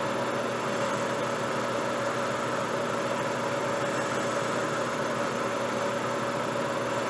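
A large Jet lathe running steadily with its chuck spinning. It makes an even machine hum and hiss, with a few steady whining tones held throughout.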